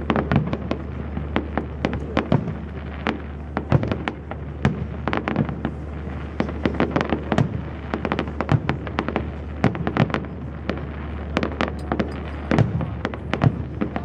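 Fireworks display: a continuous barrage of shell bursts and reports, several bangs a second in irregular clusters.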